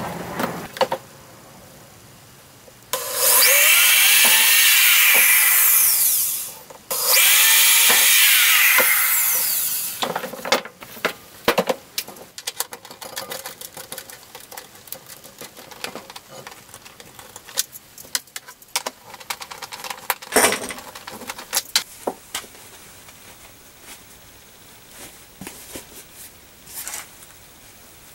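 A power drill runs in two bursts of about three seconds each, its pitch sweeping up and down. After that come scattered small clicks and knocks as parts are handled.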